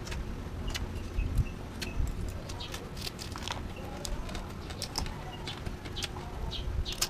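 Close-up eating sounds: a run of sharp clicks and smacks from chewing and pulling apart crab shells by hand, over a low background rumble.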